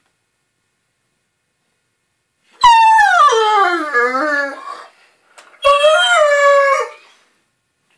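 Great Dane howling twice. The first howl is long and slides down from high to low, wavering at the end. The second, shorter one comes about a second later and holds a steadier pitch. It is a hungry dog's whiny tantrum for food.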